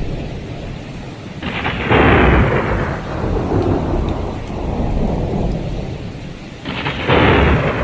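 Thunderstorm: steady heavy rain with two loud rumbles of thunder, one about a second and a half in and another near the end.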